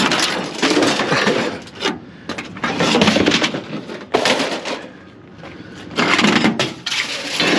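Scrap clattering and crashing as it is dumped onto a pile, in several bursts each about a second long.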